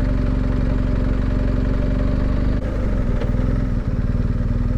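Adventure motorcycle's engine running steadily while riding, its note shifting a little over halfway through.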